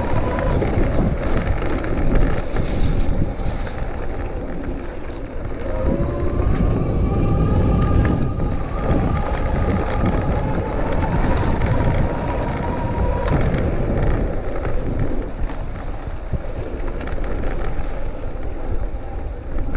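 Rear 48V 1000W hub motor of an e-bike whining under throttle. Its pitch rises about five seconds in, holds, then drops away about two-thirds of the way through. Underneath is a steady rumble of tyres on a dirt trail and wind on the microphone.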